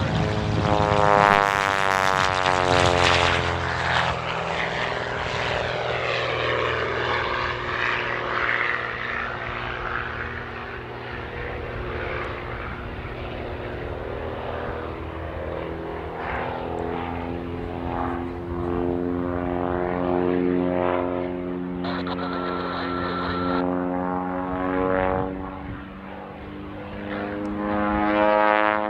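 Pitts Special aerobatic biplane's piston engine and propeller at full power, the pitch falling sharply as it passes low about two seconds in, then rising and falling as it manoeuvres, and climbing again near the end as it comes back toward the microphone.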